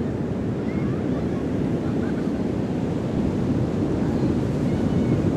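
Sea waves washing on a beach, a steady low rush of surf, with faint distant children's voices chirping over it now and then.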